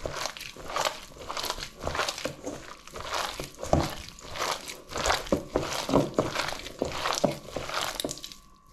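Thick bhaji batter of potato, onion, chicken and gram flour being mixed: irregular wet squelching and crunching as the onion and potato are broken down, with a brief pause near the end.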